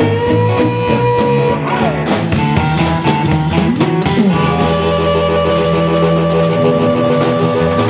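Instrumental passage of a rock song: guitar over a drum kit, with held notes and a couple of sliding, bent notes about two and four seconds in.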